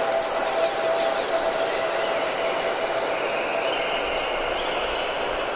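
Electronic ambient soundscape music: a dense hissing wash with a high, slowly gliding whoosh on top and faint held tones beneath.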